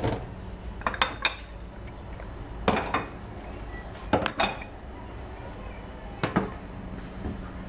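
Kitchenware being set down and shifted on a granite countertop: a series of sharp clinks and knocks, several in close pairs, from plates and a metal baking tray.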